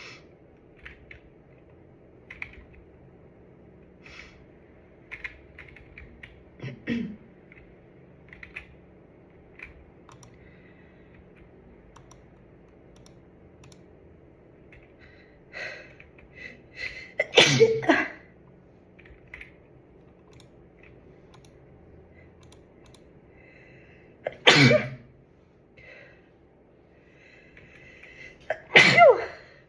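A person with a cold sneezing three times, loudly and suddenly: once a little past halfway, once about three quarters in, and once near the end, the last with a voiced cry that falls in pitch. Between the sneezes come small clicks and short soft breathy sounds.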